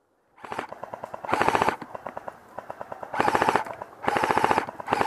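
Airsoft electric guns firing full-auto in about five short bursts, each a rapid, even rattle of shots with a steady motor-and-gearbox whine under it.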